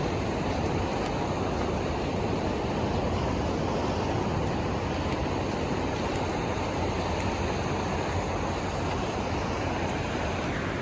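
Steady rush of ocean surf and wind, an even roar with no distinct breaks.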